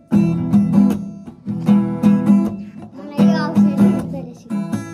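Guitar strummed in chords, a repeating pattern of strums in short groups about every one and a half seconds.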